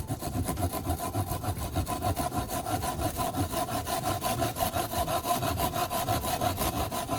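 Freshly sharpened folding hand saw cutting through a piece of wood in quick, even back-and-forth strokes, about four a second.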